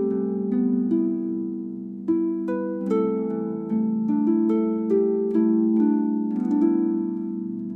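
Instrumental music: a guzheng plays a slow, gentle melody in single plucked notes, each note ringing on under the next.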